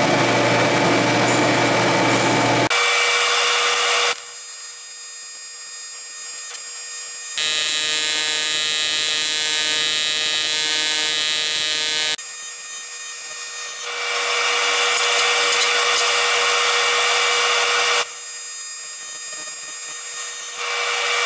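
AC TIG welding arc on aluminum plate from a PrimeWeld TIG 325X, a steady electric buzz whose tone shifts abruptly several times.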